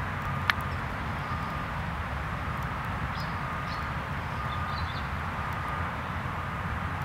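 Outdoor lakeside ambience: a steady low background rumble with faint, scattered bird chirps and a single sharp click about half a second in.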